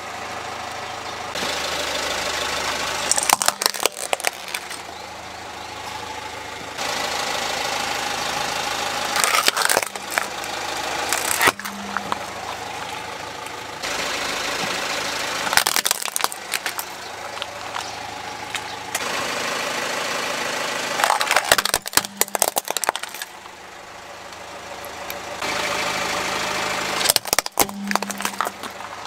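A car engine running at idle while its tyre rolls over plastic toys. Several times a burst of sharp cracking and crunching breaks in as a toy is crushed under the tyre.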